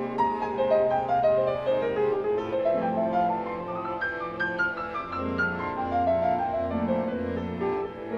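Acoustic jazz piano playing quick stepwise runs that climb and fall, over a string quartet holding notes beneath it.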